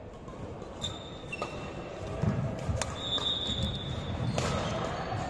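Sports shoes squeaking briefly on an indoor court, with sharp knocks of a ball bouncing and low thuds of players moving.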